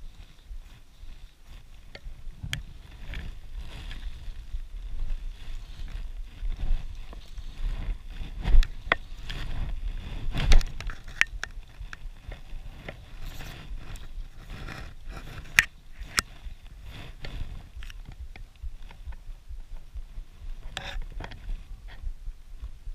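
Wind rumbling on the microphone, with irregular clicks, scrapes and knocks as the camera is handled and moved over a gravel lake shore; a few louder knocks come in the middle.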